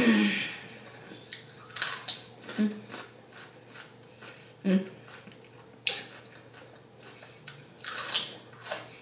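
Close-miked eating: irregular crunching bites and clicking mouth noises, a second or two apart, with a few short low mouth sounds in between.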